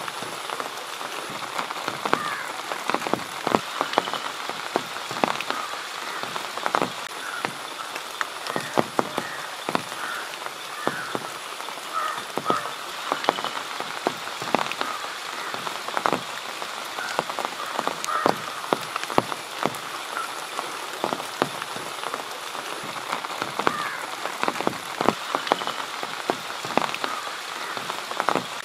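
Rain falling, with many irregular drops striking close by over a steady hiss. Short chirping animal calls sound on and off in the background.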